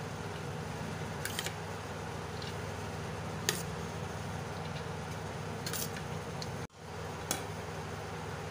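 Parboiled rice being spread by hand over a biryani layer in a steel pot: a few faint, brief clicks over a steady low hum, with a momentary dropout about two-thirds through.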